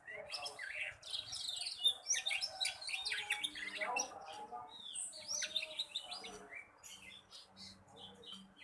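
Young black red canary twittering: a fast, continuous run of chirps, short trills and quick rising and falling notes. This is the rambling practice song of a juvenile learning to sing.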